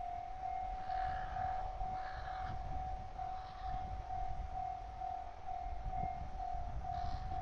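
Railway level-crossing alarm: one steady electronic tone switching on and pulsing a little over twice a second. It is the signal that a train is approaching the crossing.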